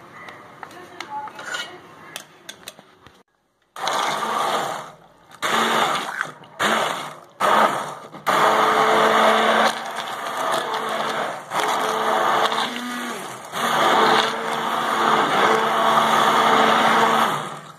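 Electric hand blender running in a metal pot of boiled sour spinach and chana dal, churning them into a coarse purée. It starts about four seconds in with several short on-off bursts, then runs in longer stretches with brief pauses, a steady motor whir over the churning of the thick mash.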